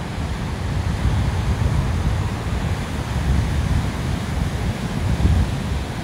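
Sea waves washing onto a beach in a steady rush, with wind buffeting the microphone in a low, gusty rumble.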